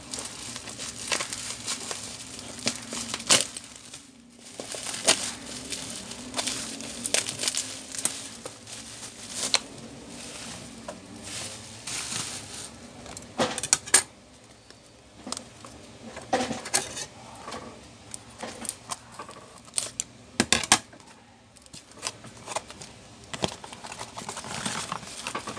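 A parcel being unwrapped by hand: plastic wrap crinkling and cardboard box flaps rustling and being pulled open, with irregular sharp crackles and knocks.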